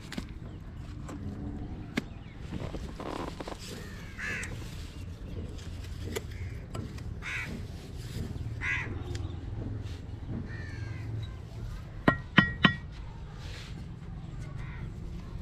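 A mason's steel trowel knocks on brick three times in quick succession about twelve seconds in, each knock ringing briefly; these are the loudest sounds. Crows caw now and then over a low steady background.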